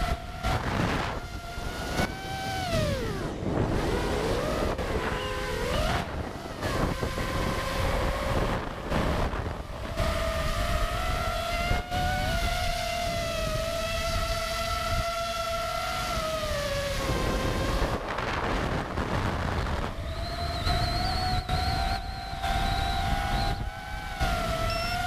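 Brushless motors and propellers of a 5-inch FPV quadcopter (DYS 2207 2600KV motors, 5-inch props) heard from the onboard GoPro: a whine that rises and falls in pitch with the throttle and drops away briefly several times, over heavy wind noise.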